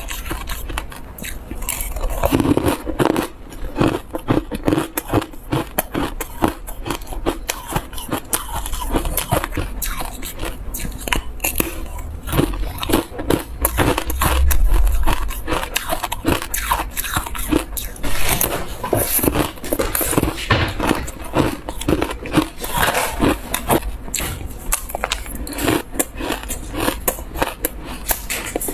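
Dry buckwheat ice being bitten and chewed close to the microphone: dense, crisp crunching from powdery frost and a refrozen ice block, with a louder stretch about halfway through.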